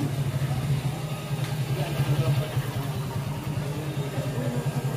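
Motorcycle engine idling close by, a steady low pulsing hum, over general street noise.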